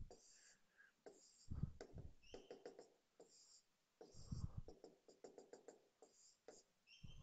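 Faint scratching of a pen drawing short strokes, with pauses between them and a couple of soft low thumps.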